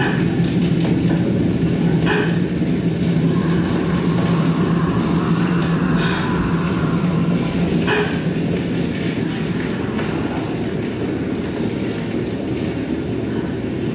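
A low, rumbling electronic drone with a steady hum under it that fades out past the middle, with a faint rising and falling sweep. Three short, sharp breaths or gasps from a performer break in, about two, six and eight seconds in.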